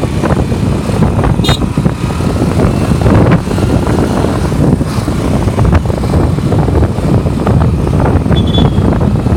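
Loud, continuous low rumble of vehicle engines and traffic, with short high chirps twice.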